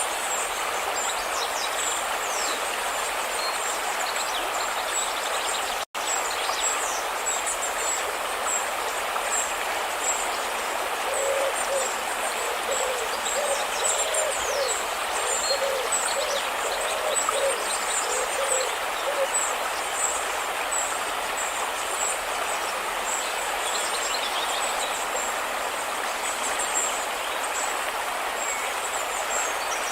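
Steady rushing of river water, with small birds chirping high above it. A run of short, low, hooting calls comes in about eleven seconds in and stops near twenty, and the sound drops out for an instant about six seconds in.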